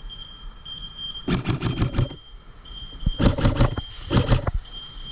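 Airsoft electric gun firing three short full-auto bursts of rapid clicks, about a second in, at three seconds and at four seconds. A high beeping tone switches on and off underneath.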